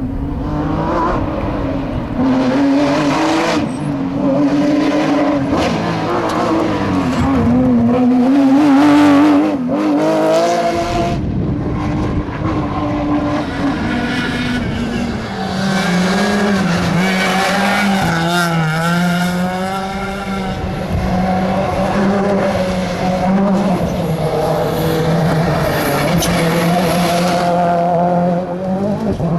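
Rally car engines driven hard on a test stage, the note repeatedly rising and dropping through gear changes as the cars accelerate and brake, with a different engine note taking over about halfway through.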